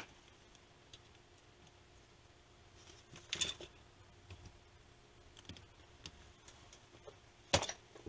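Capacitive discharge spot welder firing through its hand-held copper electrodes onto the tab of an 18650 lithium cell: two sharp snaps, one about three and a half seconds in and a louder one near the end, with faint clicks between as the electrodes are set down.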